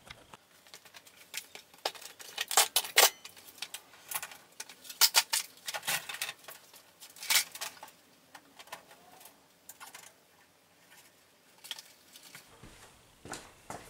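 Irregular clicks, taps and light rattles of a ceiling fluorescent light fixture's diffuser panel being pushed up, unlatched and swung open on its hinge. The clicks are densest in the first half and grow sparse later.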